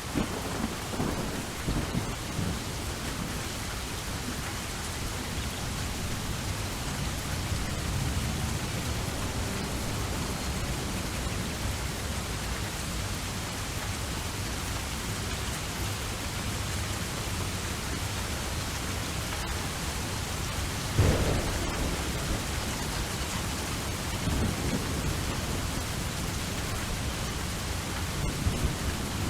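Steady rain with thunder rumbling low in the background, and a sharper, louder clap of thunder about 21 seconds in.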